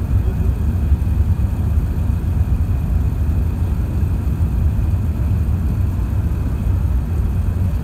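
Steady low cabin rumble of an Airbus A380-861's four Engine Alliance GP7270 turbofans and airflow, heard inside the passenger cabin during the climb after takeoff.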